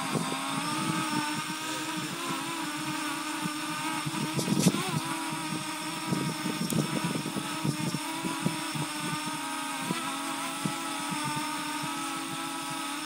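Parrot Anafi quadcopter hovering, its four propellers giving a steady buzzing hum that wavers slightly in pitch. Irregular low rumbling runs beneath it, strongest about four and a half seconds in.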